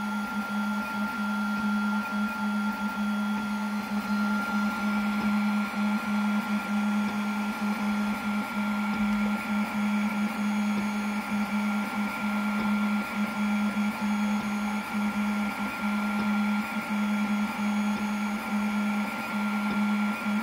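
Snapmaker 2.0 A150 laser cutter running a cut in plywood: the machine's motors drive the laser head with a steady hum that drops out briefly many times as the head changes direction, over a thin steady high whine.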